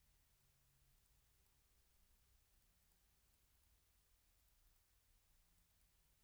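Near silence, with faint computer mouse clicks scattered through, several in quick pairs.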